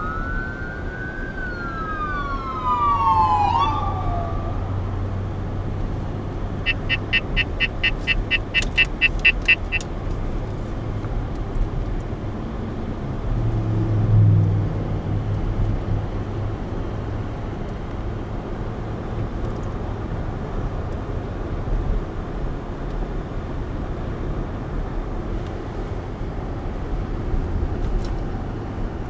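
An emergency vehicle's siren wails up and down for the first few seconds, heard from inside a moving car over its steady road and engine noise. A quick run of about fourteen short, even beeps comes near eight seconds in, and after that only the car's steady road noise remains.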